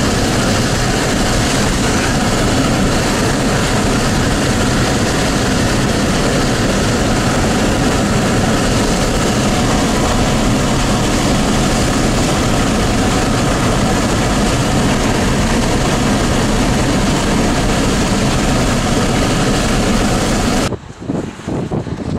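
Steady, loud road and engine noise of a moving vehicle. About 21 s in it cuts off abruptly and gives way to gusty wind buffeting the microphone.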